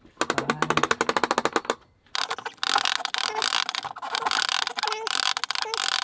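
Rapid mechanical clicking while an RV patio awning's spring tension is being worked: first a burst of evenly spaced clicks lasting under two seconds, then after a brief pause a longer, denser and louder run of clicking.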